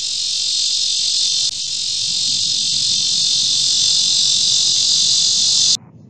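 Male cicada's mating call: a loud, steady, high-pitched buzz that cuts off suddenly near the end.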